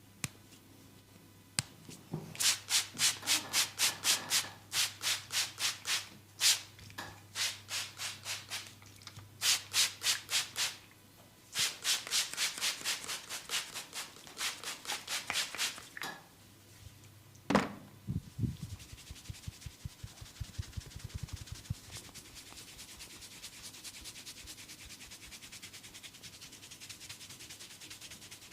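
Massaging hands rubbing briskly in rapid strokes, about three a second, in runs with short pauses between them. Near the end comes a sharp slap, then a few seconds of quick soft low thumps, then a steady faint hiss of rubbing.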